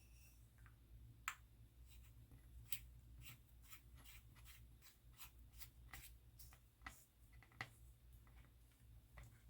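Faint, irregular clicks and taps of small parts being handled as an XLR cable connector is put back together, over a steady low hum.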